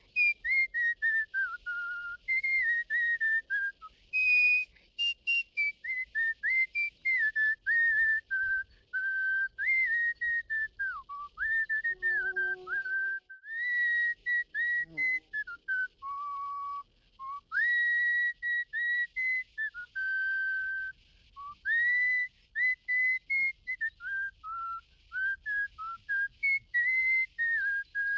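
A patriotic tune whistled as a melody of clear single notes, stepping and sliding up and down in short phrases with brief gaps between them.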